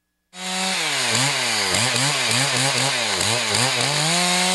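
Chainsaw cutting through the trunk of a French maritime pine. The engine runs at full throttle, its pitch dipping and recovering about three times a second as the chain bites into the wood, then settles to a steady high pitch near the end.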